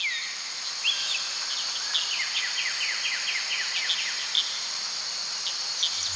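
Outdoor garden ambience: birds chirping, with a fast trill of short repeated notes in the middle, over a steady high insect-like hiss.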